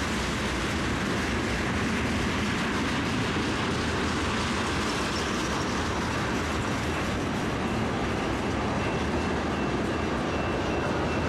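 Freight train cars rolling past at steady speed, a continuous rumble and rail noise, with a faint high wheel squeal in the later seconds.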